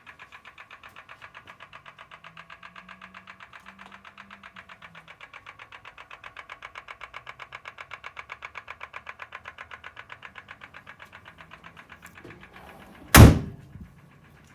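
Rapid, even ticking from a BMW M4, about eight ticks a second, growing louder through the middle and easing off again. A single loud thud comes near the end.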